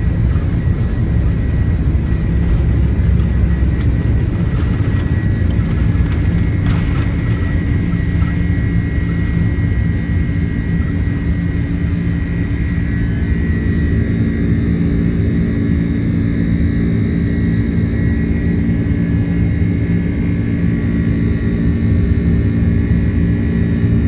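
Airbus A330-300 jet engines running at high power during takeoff: a loud, steady rumble with a whine over it. Steadier humming tones come in about halfway through.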